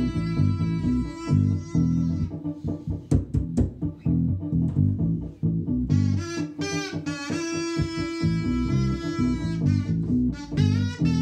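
Kazoo buzzing a melody over a plucked electric bass playing a busy line of short notes. The kazoo drops out about two seconds in, leaving the bass alone, and comes back about six seconds in with sliding pitch bends.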